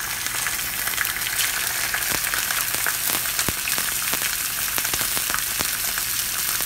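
Salmon fillet frying skin side down in hot vegetable oil in a cast-iron skillet: a steady sizzle with scattered pops and crackles.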